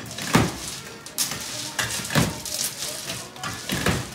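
A heavy mass of hot hard candy being pulled by hand over a metal hook to work air into it, slapping and thudding against the hook roughly once a second.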